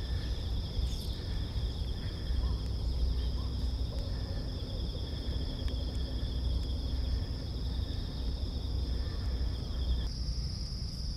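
Insects singing in two steady, high-pitched trills, one of which stops about ten seconds in, over a low rumble.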